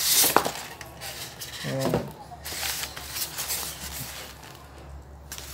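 Packaging being handled and unwrapped by hand: a burst of rustling at the start, then scattered light rustles and clicks. There is a short voiced sound from the person about two seconds in.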